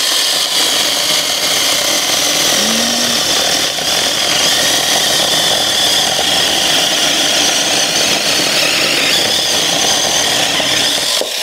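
Bei & Hong 6-inch 21-volt cordless mini chainsaw running flat out, its chain cutting steadily through a branch of semi-seasoned hardwood, with a constant high whine; it stops near the end.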